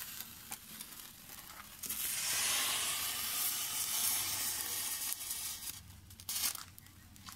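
Thermite burning: a sputtering crackle at first, then a loud, steady hissing fizz about two seconds in that lasts some four seconds as the charge flares. It then falls away to scattered crackles and pops as the reaction dies down.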